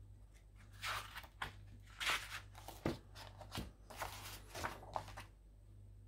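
Paper rustling as a picture book's pages are handled and turned: a string of short, soft rustles over a few seconds, with a low steady hum underneath.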